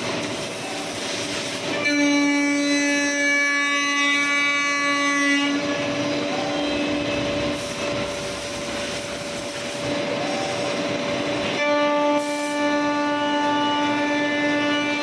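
Spindle of a 5-axis CNC wood router machining a curved wooden chair part. A steady high whine with overtones comes in about two seconds in, drops away a few seconds later and returns near the end, with a rushing, noisier cutting sound in between.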